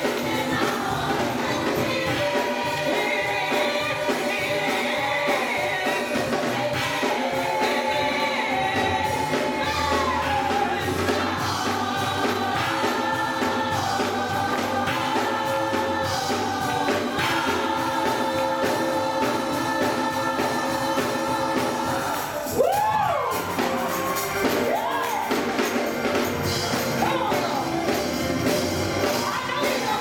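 Gospel choir singing sustained, many-voiced notes over a low steady accompaniment. About two-thirds of the way through, one voice cries out loudly, sliding up and back down.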